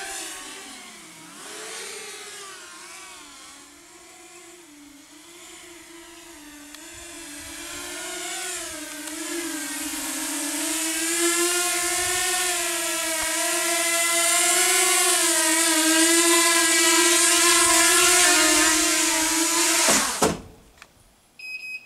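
Walkera Rodeo FPV racing quadcopter's electric motors and propellers whining, the pitch wavering with the throttle. It fades and drops in pitch at first, then comes closer and grows steadily louder, and the motors cut out abruptly about twenty seconds in as it lands.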